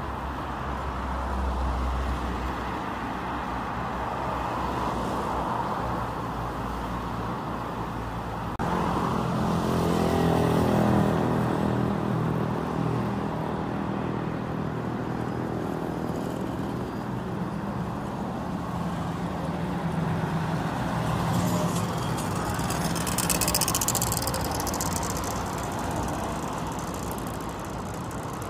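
Street traffic: cars driving past on a wide avenue. About nine seconds in, one car's engine passes close, its note falling as it goes by, and near the end another car passes with a swell of tyre hiss.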